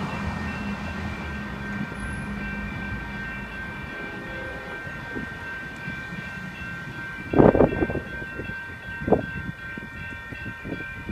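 Approaching westbound Union Pacific intermodal freight train, still out of sight: a low rumble with several steady high tones held together throughout. From about seven seconds in there are irregular knocks, the loudest one first.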